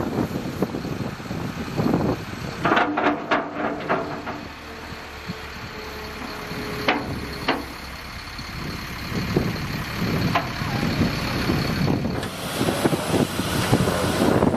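A heavy vehicle running, with gusts of wind buffeting the microphone.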